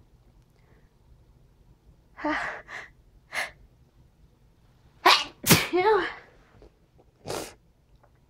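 A person sneezing over and over in a fit: half a dozen short, sharp sneezes, with the loudest pair about five seconds in and a brief vocal tail after them.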